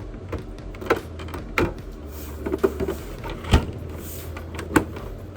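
Irregular clicks and knocks of PlayStation 5 console parts being handled and fitted during reassembly, about five in all, over a steady low hum.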